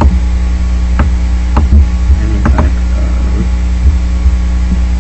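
Loud, steady electrical hum with a hiss, the recording's background noise, broken by a few sharp clicks.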